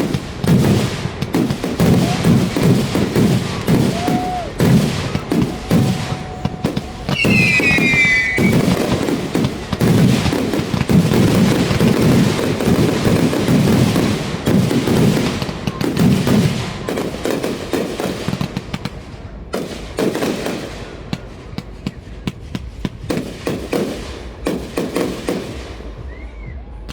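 Fireworks display: rapid, dense volleys of bursts and crackle, with a whistling shell gliding down in pitch about seven seconds in. The barrage thins to scattered bursts in the last third.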